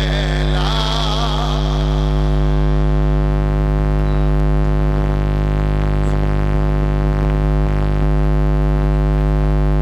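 Loud, steady droning hum made of many unchanging tones with no melody or rhythm, with a voice wavering faintly over it in the first second or so.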